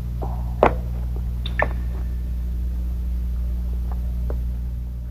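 Footsteps on a rocky cave floor: two sharp steps in the first two seconds, then two fainter ones near the end, over a steady low droning hum.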